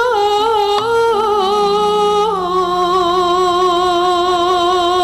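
A sinden, a female Javanese singer, singing a tembang in long, melismatic held notes with vibrato. About two seconds in the pitch steps down to one long sustained note. A quieter, steady lower accompanying note runs beneath it.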